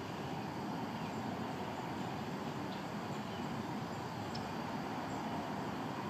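Steady low background rumble of outdoor ambience, like distant traffic, with a couple of faint, very brief high chirps about three and four and a half seconds in.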